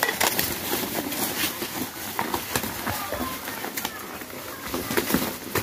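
A crowded flock of domestic pigeons feeding on scattered grain, with many quick, irregular wing flaps and scuffling.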